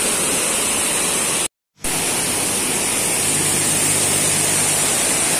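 Waterfall and rapids rushing steadily. The sound cuts out to silence for a moment about one and a half seconds in, then comes back the same.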